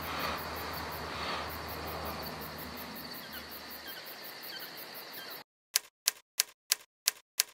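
Crickets chirping in a fast, even pulse over faint hiss, cutting off suddenly about five seconds in; then six sharp typewriter key clicks, about three a second, as a title types on.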